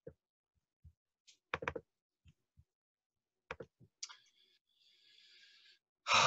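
Scattered soft clicks of a computer mouse and keys, some single and some in quick pairs, while the next background image is picked. Near the end comes a loud breathy sigh.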